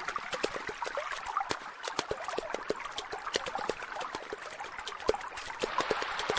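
Running water trickling and splashing, like a small stream over rocks, with many small irregular drips and plops.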